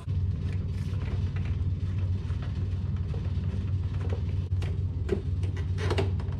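Steady low hum, with scattered light clicks and knocks from the plastic motorcycle belly fairing being handled and freed from its zip ties, mostly in the second half.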